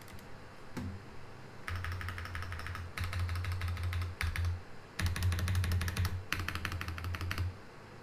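Tiger 80 Lite mechanical keyboard with Gazzew Boba U4T tactile switches, PBT keycaps and foam and polyfill dampening, typed on fast in bursts of rapid keystrokes with a deep low thud under them. The typing starts about a second and a half in, pauses briefly near the middle, and stops shortly before the end.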